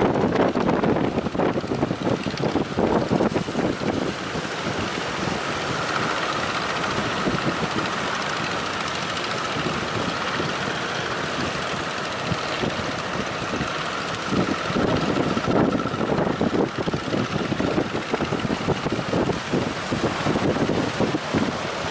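Strong wind buffeting the microphone in gusts, with a steady rushing noise. The gusts ease through the middle stretch, where a faint steady hum runs under the wind, then pick up again in the last third.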